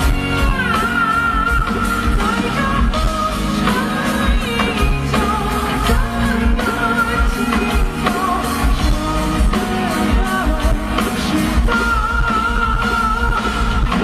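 A male singer sings live into a handheld microphone over a band accompaniment: a slow, held melody with vibrato on the long notes.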